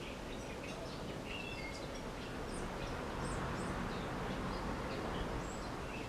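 Small birds chirping now and then, short high calls scattered through, over a steady background hiss and low rumble.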